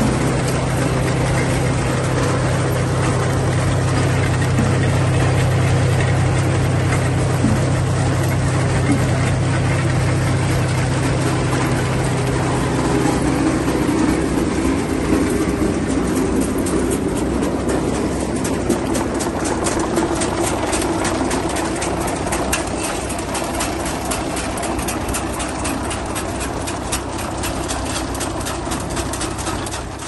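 Tractor-drawn potato harvester working: a steady tractor engine hum under the running harvester. About halfway through the hum drops back and a fast, even rattling clatter of the harvester's mechanism comes to the fore.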